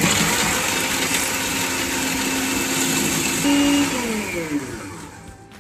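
Electric food processor running, its blade chopping green chillies, coriander, ginger, garlic and dried red chillies fine. About four seconds in it is switched off, and its whine falls away as the blade spins down.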